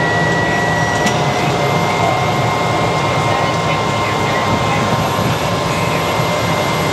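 Cessna Caravan's single turboprop engine running on the ground, heard from inside the cabin: a steady rush of noise with high whining tones held at one pitch.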